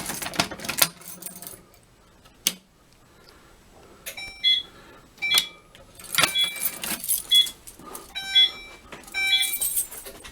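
Keys jangling as a key is worked into a Notifier NBG-12L fire alarm pull station, with a sharp click about two and a half seconds in. From about four seconds in, short alarm tones sound about once a second, mixed with more rattling: the pull station has tripped the system in walk test, so the alarm sounds only briefly.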